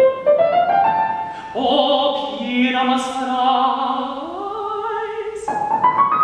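Operatic tenor singing a slow aria with grand piano accompaniment, the voice rising in pitch about four seconds in.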